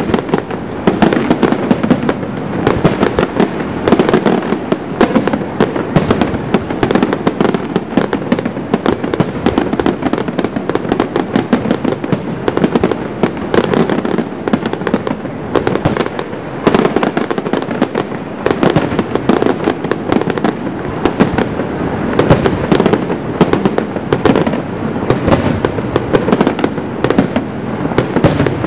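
Aerial fireworks display going off without let-up: a dense, unbroken stream of bangs and crackling bursts, many per second.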